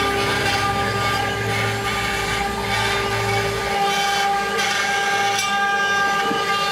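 CNC 6090 router's spindle whining steadily as a 3 mm ball-nose cutter makes a finishing pass through wood. A lower hum under the whine shifts about halfway through as the head moves across the work.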